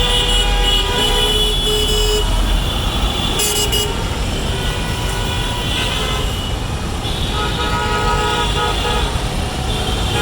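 Busy roadside traffic: a steady rumble of engines and tyres with repeated vehicle horns. One horn sounds for about the first two seconds, and more horns honk in the later part. A brief high-pitched ring comes about three and a half seconds in.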